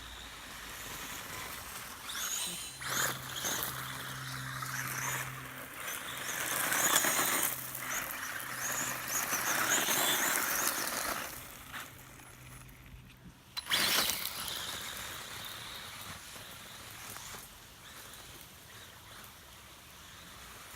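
Brushless-motored Feiyue FY-03 Eagle RC buggy driving on a test run: high motor whine rising and falling over tyre noise, with a sharp knock about fourteen seconds in.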